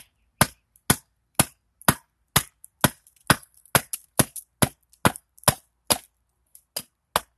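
Small hatchet chopping into a cherry-wood spoon blank standing on a stump, about two sharp strikes a second with a short pause near the end, each blow popping off a chip as the spoon's profile is axed out.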